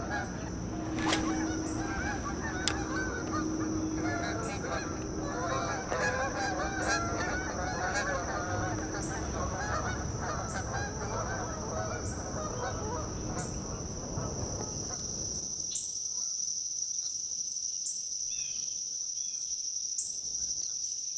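Geese honking and chattering, the calls dying away about fifteen seconds in, over a steady high-pitched insect buzz.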